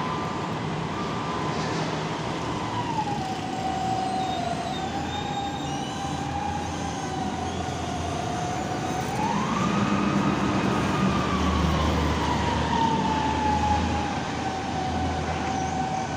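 Kalmar reach stacker's diesel engine and hydraulics running with a steady high whine. The whine dips in pitch about three seconds in, then rises sharply and the rumble swells as the engine revs to lift the boom, before the whine slides slowly back down.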